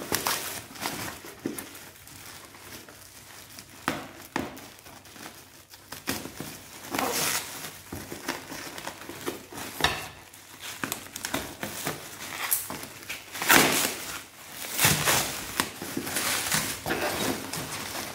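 Plastic wrapping film and bubble wrap crinkling and rustling as hands pull and tear them off a parcel, in uneven spells with a few sharp crackles.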